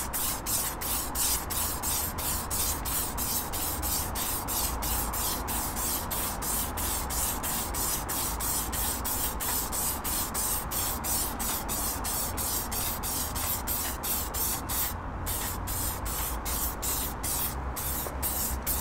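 Aerosol can of Halfords clear-coat lacquer spraying in a long continuous hiss, laying a coat of clear over freshly painted gloss-black alloy wheel.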